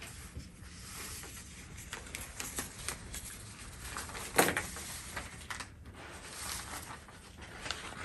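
Faint rustling and light clicks of someone moving and handling things, with one sharper knock a little past halfway.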